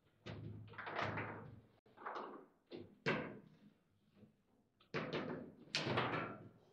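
Table football (foosball) in play: clusters of sharp knocks and clacks as the figures on the rods strike the ball and the ball rebounds off the table walls. The strikes come in bursts about a second in, around two and three seconds in, and again from about five seconds in, with quieter gaps between.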